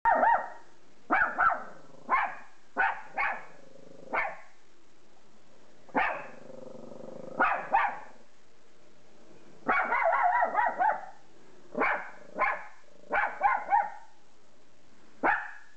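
Small terrier barking sharply at passers-by and another dog outside the window, in short single and double barks with a fast run of barks about ten seconds in.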